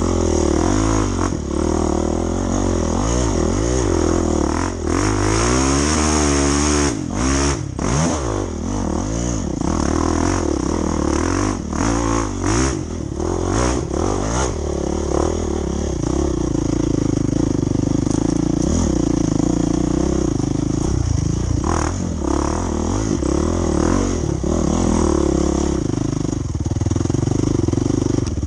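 Off-road dirt bike engine being ridden, its revs rising and falling again and again as the throttle is worked, with a few sharp knocks in the middle stretch.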